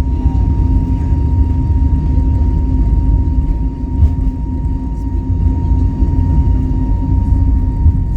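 Airbus A320neo's CFM LEAP-1A turbofans at takeoff thrust, heard inside the cabin: a loud steady rumble with a thin steady tone above it.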